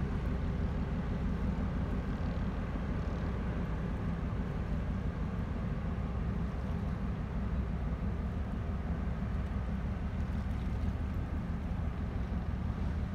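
Low, steady rumble of a passing container ship's engine.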